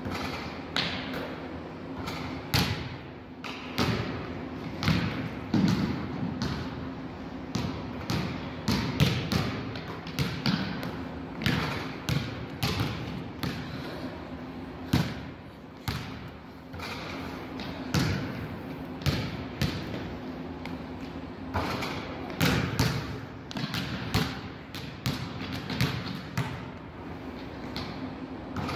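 Basketballs bouncing on a hardwood gym floor as two players dribble and shoot. The thuds come irregularly, several a second at times, and echo in a large gymnasium.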